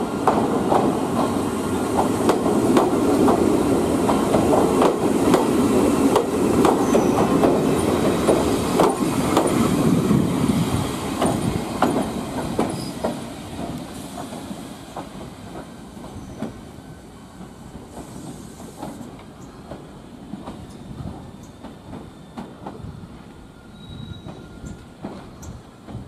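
Nagano Electric Railway 3500 series electric train rolling through station tracks, its wheels clattering over rail joints and points with a few brief, faint squeals. The sound fades after about twelve seconds as the train moves away.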